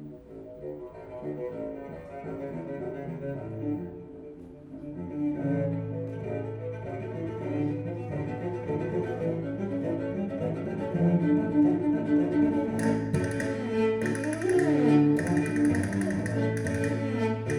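Music played back over Marten loudspeakers and recorded in the listening room: deep bowed strings hold long low notes, swelling in loudness about five seconds in. A bright, high, rhythmically broken layer joins about thirteen seconds in.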